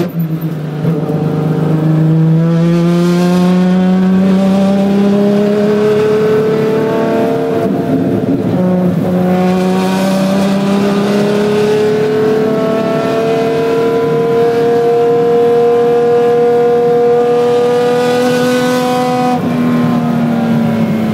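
Ferrari 599XX's V12 engine at full load, heard from inside the cockpit. Its pitch climbs slowly through a long pull, with a brief dip about eight seconds in as it changes gear. It climbs again until a sudden drop in pitch near the end.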